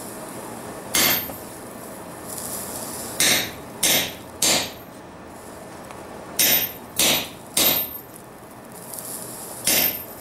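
Hammer blows on a chisel driven into a red-hot steel railroad spike on an anvil, cutting a slit to split the spike. There are about eight sharp metallic strikes with a brief ring: one on its own, then two quick runs of three, then one near the end.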